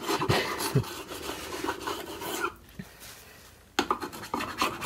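A scraper rubbing softened decal adhesive off the plastic control-panel fascia of a Fisher & Paykel Smart Drive washing machine, a quick scratchy scraping. It pauses for about a second past the middle, then starts again.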